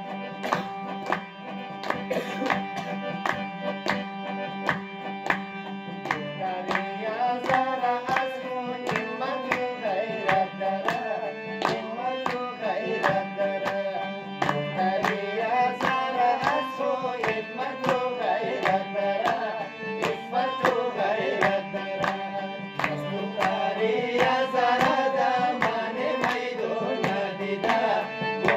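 A song with a man singing into a microphone over a fast, even percussion beat and sustained accompaniment; the sung melody comes in about six seconds in.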